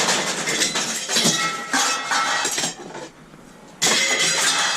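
Loose scrap metal clattering and clinking as pieces are handled and dropped, with a lull about three seconds in before another burst of clatter.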